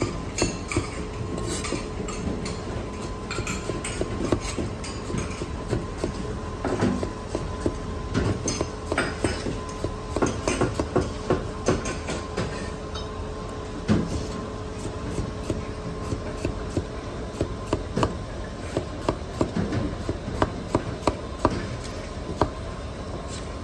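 Chinese cleaver slicing bitter gourd on a thick cutting board: quick runs of crisp knocks as the blade chops through the gourd and strikes the board, with short pauses between runs.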